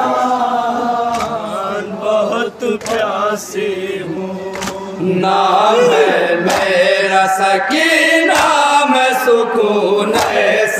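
A group of men chanting a noha, a Shia mourning lament, into microphones, with regular hand strokes of chest-beating (matam) about once a second. The singing gets louder about halfway through.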